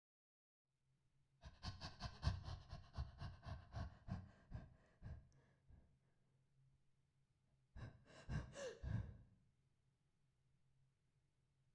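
A woman's rapid, breathy gasps, about five a second for several seconds, then a shorter burst of gasps a couple of seconds later: vocal breath sounds used as extended technique in a contemporary solo voice piece.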